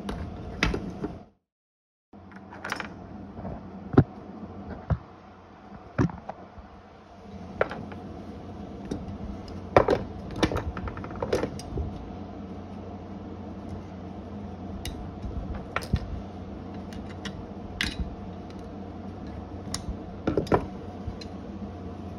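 Irregular metallic clicks and taps from locking pliers and a key blade being handled and set against a wooden table, over a steady background hum.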